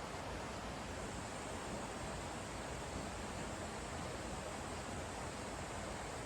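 Steady rushing of a mountain stream running high after rain: an even hiss of flowing water with no distinct splashes.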